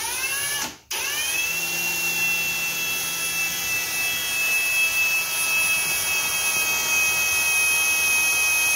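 Cordless drill with a small bit boring a pilot hole in sheet-metal bodywork. After a brief squeeze of the trigger, the motor spins up with a rising whine about a second in and then runs steadily while the bit cuts.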